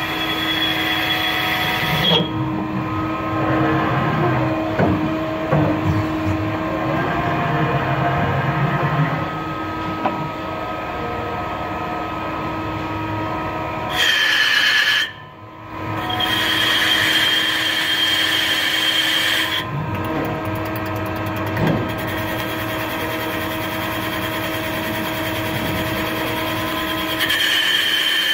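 Mazak CNC lathe turning a steel crankshaft: the spindle runs with a steady hum and whine, and a higher-pitched cutting sound from the tool comes and goes. The sound drops off briefly about halfway through.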